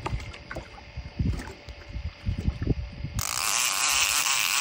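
Fishing reel's drag buzzing as a hooked fish runs and pulls line off, a burst of about a second and a half near the end that stops suddenly. Before it, low knocks and thumps.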